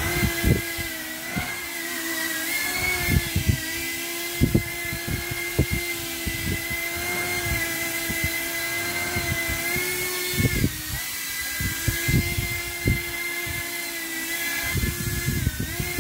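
CineApe25 cinewhoop FPV drone hovering, its brushless motors and ducted propellers giving a loud steady whine whose pitch dips briefly about eleven seconds in and again near the end, with irregular low thumps. The motors run normally after the drone was submerged in muddy water and dried.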